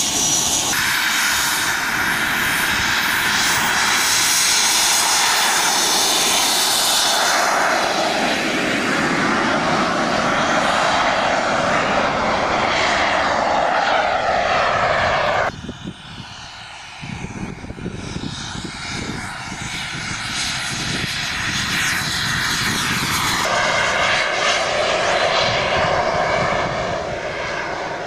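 Small model jet turbine on a large radio-controlled scale glider, running with a steady rushing whine as the model flies. About halfway through the sound suddenly drops to a quieter, more distant level, then grows louder again near the end.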